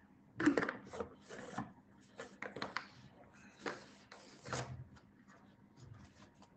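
Irregular handling noises: a string of short soft knocks, clicks and rubs, thinning out to faint ticks near the end.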